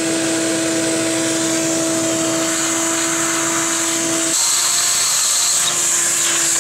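Vacuum cleaner running with a steady motor whine while sucking aluminum tapping chips out of a freshly tapped bolt hole in an aluminum cylinder head. The whine changes a little about four seconds in.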